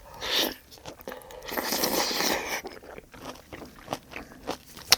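Close-miked eating: a loud bite, a longer stretch of noisy chewing, then a run of short wet mouth smacks and clicks.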